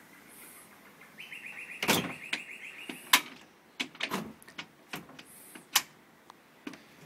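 Aluminium sliding glass door running on newly replaced rollers and track: a brief whirring as it rolls, then a string of sharp knocks and clunks, the loudest about three seconds in and again near six seconds, as the door is moved and stops against its frame.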